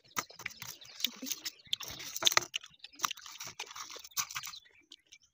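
Close-up crunching and chewing of unripe green mango, a dense run of crisp crunches that stops about four and a half seconds in.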